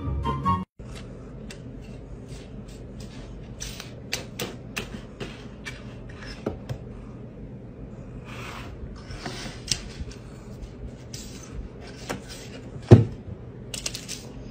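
A cat batting at small objects on a bedside table: a string of light taps and clicks with short scraping rustles, and one louder knock about 13 seconds in.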